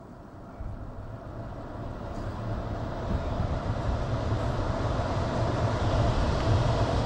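Newly installed ECM blower motor starting up and spinning its squirrel-cage blower wheel, the hum and rush of air rising steadily as the motor ramps up to speed.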